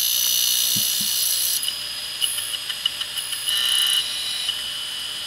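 Quantum ProDrive ELS hard drive running with its lid off: a steady high whine that changes about a second and a half in, then a run of rapid ticks and a short screech near four seconds in. It is the sound of a failing drive that no longer parks its heads correctly, its heads damaged after the rubber part in the head mechanism deteriorated, scraping.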